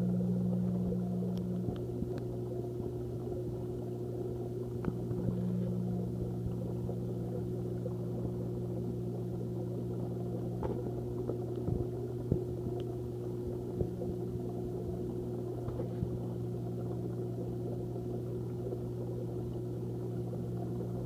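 Steady hum of aquarium equipment, made of several low tones held level, with a few faint ticks scattered through it.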